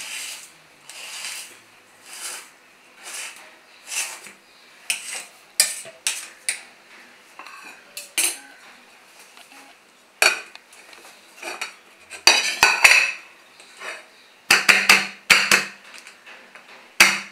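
A knife scraping around the inside of a steel tin in repeated short strokes, about one a second at first, loosening the edges of the steamed dhokla. Near the end comes a run of metal clinks and clatter as a steel plate is set over the tin.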